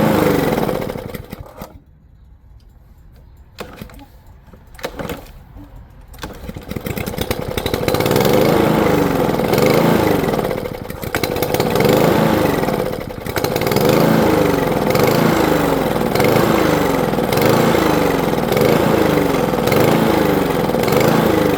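Walk-behind lawn mower engine running. It drops away about a second and a half in, with a few short knocks while it is quiet, and comes back loud some six seconds later. It then runs steadily with its pitch sagging and recovering about every second and a half as it is pushed through thick grass.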